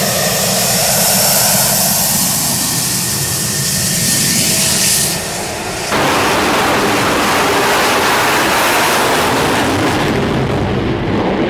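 Fighter jet engines: first a steady jet roar with a high whine from an F-16 on the runway. About six seconds in it cuts to the louder, fuller roar of an F/A-18 at full afterburner launching from a carrier deck.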